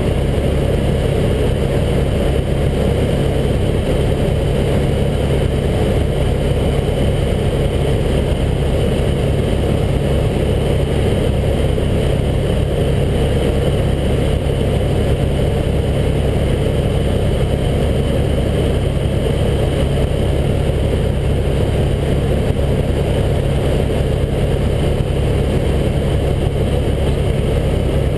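Helicopter engine and main rotor heard from inside the cabin: a loud, steady, unchanging drone with a strong low hum.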